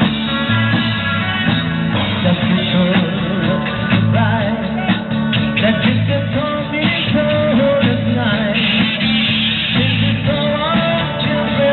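Live rock band playing on stage, guitars and keyboard keeping a steady chord rhythm, with a lead vocal coming in about four seconds in.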